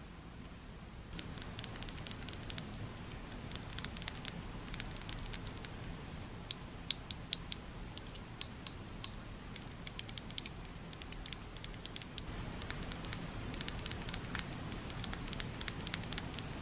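Small plastic capsule-toy figures handled in the fingers and tapped by fingernails: a run of light clicks and taps starting about a second in, some with a brief bright tick, over a low steady room background.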